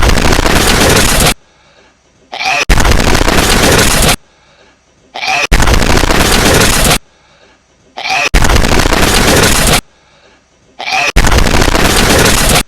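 A hedgehog's sneeze, looped and boosted until it distorts: five very loud, noisy blasts about every three seconds, each lasting about a second and a half. Each is set off by a sharp click, with a brief quieter sound just before it.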